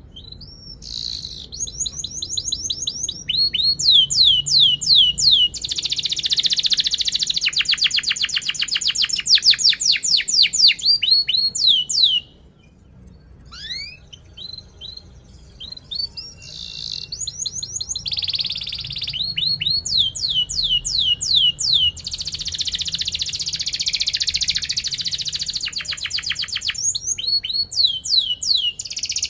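Yellow canary singing a long, fast song: series of quick falling whistled notes and rapid rolling trills. It breaks off briefly around twelve seconds in, then starts up again.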